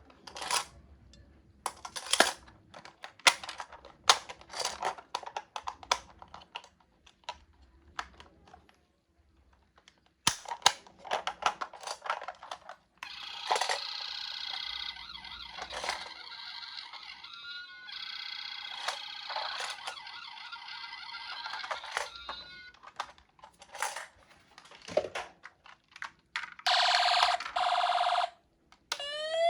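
Toy ambulance minicar being handled, with many sharp plastic clicks and taps. About halfway through, its electronic sound unit plays a long run of shrill electronic tones, followed by two short tone blasts near the end.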